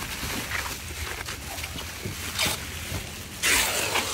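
Plastic wrapping crinkling and rustling as wrapped bundles are handled, with a short louder burst about two and a half seconds in and a longer, louder one near the end.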